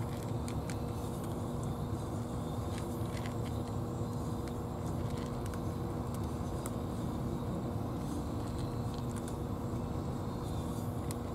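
Cats crunching dry kibble from plastic bowls, faint scattered clicks, over a steady low mechanical hum.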